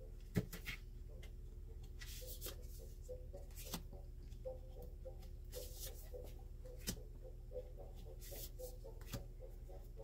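Playing-card-sized tarot cards being drawn one by one from a deck and laid down on a cloth-covered table: soft sliding swishes and a few light taps, over a steady low hum.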